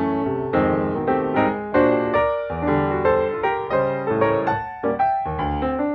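Background piano music: a flowing run of struck notes, each starting sharply and fading away.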